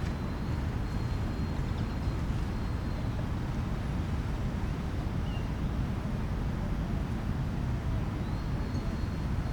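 Steady low rumble of distant city traffic, with a faint thin high steady tone at the start and again near the end.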